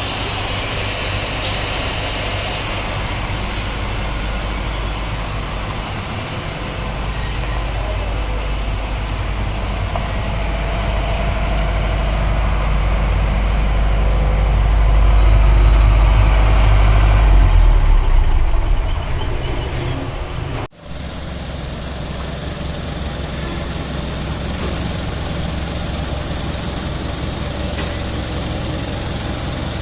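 Diesel generator set with a turbocharged Tata 407 engine running during a load test. Its low rumble grows louder and heavier through the middle, then falls back around eighteen to twenty seconds in. It breaks off for an instant just before twenty-one seconds and carries on steadily.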